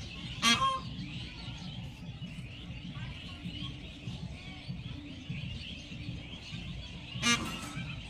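Peahen (female Indian peafowl) giving two short, loud, harsh calls, one about half a second in and one near the end.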